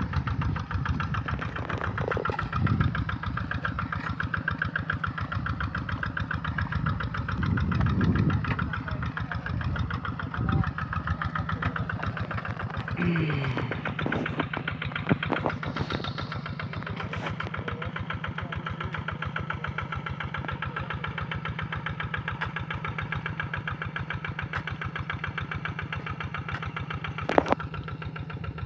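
Rice-paddy ploughing tractor's engine running steadily with a fast, even chug.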